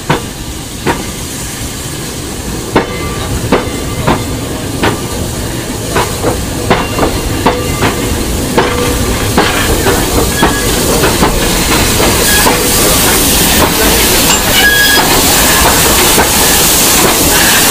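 South African Railways Class 15F steam locomotive reversing slowly, pushing its tender and a water tank wagon. The wheels give sharp, irregular knocks that come quicker as more wheels roll past, over a hiss of steam that grows louder as the locomotive draws level.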